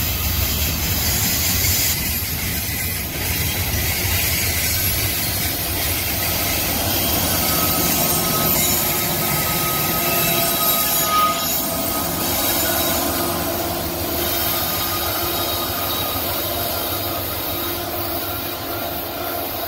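Freight train rolling past: steel wheels rumbling steadily on the rails, with thin squeals from the wheels that come and go around the middle. Its rear diesel locomotive goes by about halfway through, and the sound stays loud as the train moves off.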